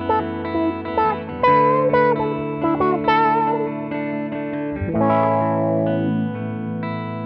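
Two electric guitars playing together through an Ibanez AFL Auto Filter envelope filter: a lead line with bent notes over held chords, then a strummed chord about five seconds in.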